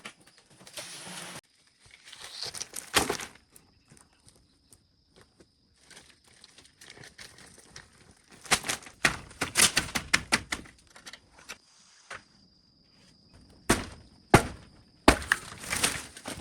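Irregular sharp knocks and clattering, bunched into a burst about three seconds in, a long run in the middle and several hard knocks near the end, over a faint steady high-pitched tone.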